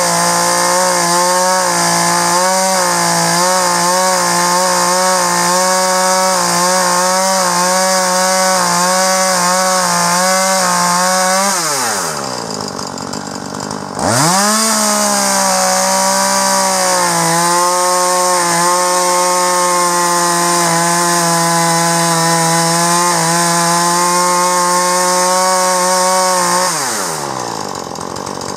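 Chainsaw at full throttle ripping a log lengthwise along a lumber cutting guide, the engine note wavering under the load of the cut. About 11.5 seconds in the throttle is released and it drops to idle for a couple of seconds, then it revs back up and cuts on, dropping to idle again near the end.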